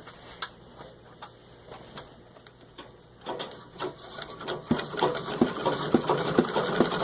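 1923 Singer 66 treadle sewing machine stitching through six layers of denim at slow speed: a few scattered clicks at first, then from about three seconds in a steady rhythmic clatter of needle strokes, about three a second.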